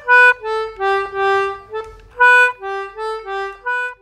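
Background music: a simple tune played one note at a time on a single reedy-sounding instrument, about a dozen short notes stepping up and down.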